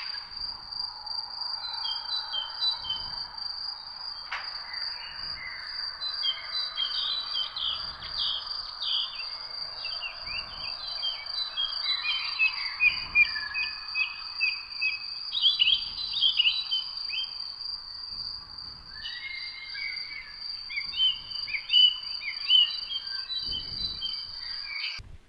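Tropical woodland ambience: many birds chirping and calling in quick overlapping phrases over a steady, high insect drone. The sound cuts off just before the end.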